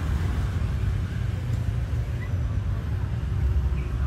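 Steady low outdoor rumble, with a couple of faint short high chirps about two and four seconds in.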